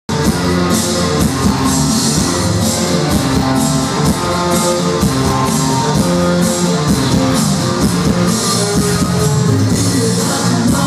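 Loud dance music with a steady beat, played over a party sound system.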